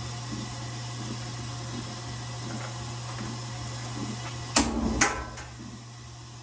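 Grabber/reacher tool pulling a plastic bag down off a high shelf: two sharp knocks about half a second apart, roughly four and a half seconds in, over a steady low hum.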